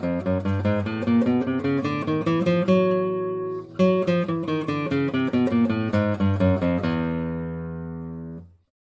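Acoustic guitar playing quick runs of picked notes, about four to five a second, with a short break about three and a half seconds in. It ends on a held chord that rings for about a second and a half before it is cut off abruptly near the end.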